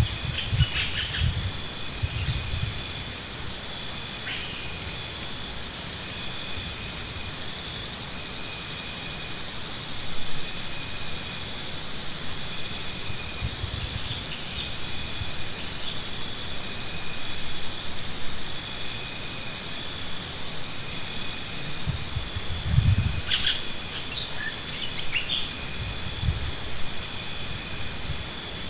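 Insects chirping in high, rapid trills that come and go every few seconds over a steady high drone, with a few low thumps.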